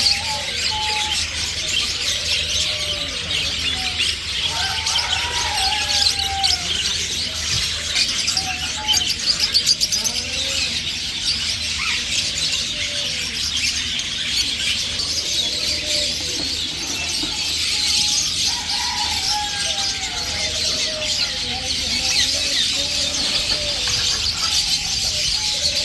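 Many small caged birds chirping and twittering at once, a dense, continuous chorus of high chirps.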